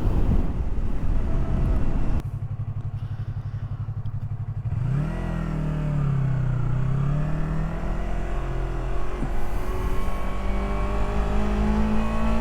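Yamaha R3 parallel-twin motorcycle engine: wind rush while riding, then about two seconds in the wind drops away and the engine idles steadily. Around five seconds in the revs rise as the bike pulls away, then the engine holds a steady note that climbs slowly.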